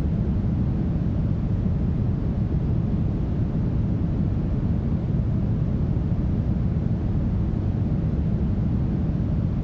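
Smoothed brown noise: a steady, unbroken deep hiss, heaviest in the bass and dull in the treble, with no changes or events.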